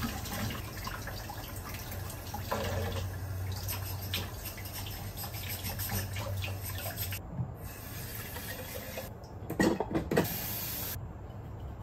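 Kitchen tap running into a stainless steel sink as a glass cup is rinsed under it; the flow stops about seven seconds in. Near the end come a few short, loud clatters and splashes.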